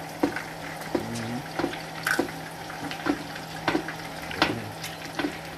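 Chicken leg frying in dark sauce and oil in an electric skillet, sizzling and bubbling steadily while a wooden spoon bastes it. Frequent sharp pops and clicks come through irregularly, about two a second.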